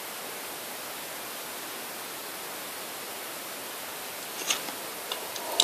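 Steady background hiss, with a few faint ticks of trading cards being handled near the end.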